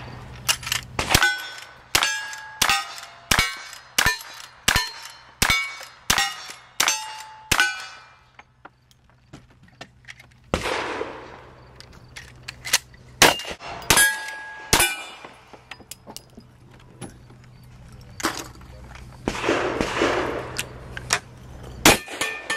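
Cowboy action shooting stage: a quick string of gunshots, each followed by the ring of a steel target being hit, about one shot every 0.7 s for some eight seconds. After a pause, a few more shots and steel rings follow, and there is one more shot near the end when a shotgun is in use.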